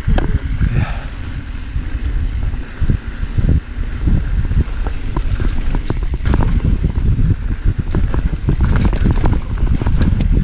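Mountain bike descending dirt singletrack at speed: wind buffeting the microphone over the rumble of knobby tyres on packed dirt, with frequent rattling clicks and knocks from the bike over bumps.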